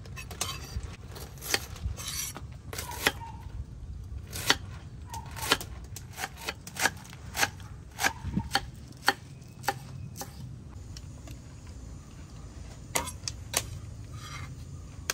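Knife slicing Napa cabbage on a wooden chopping block: sharp, uneven knocks of the blade through the leaves onto the wood, about two a second. The knocks stop about ten seconds in, with two or three more a few seconds later.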